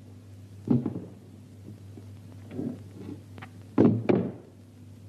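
Dull wooden thumps as a large wooden-framed sign is carried and set down against a wooden post: a small knock about a second in, then the loudest double thunk about four seconds in. A low steady hum runs underneath.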